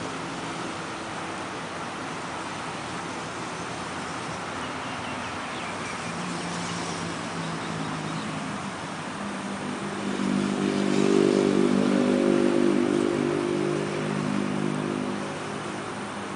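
An engine hum over a steady background hiss: the engine comes in faintly about six seconds in, is loudest from about ten to fifteen seconds, then fades, like a motor passing by.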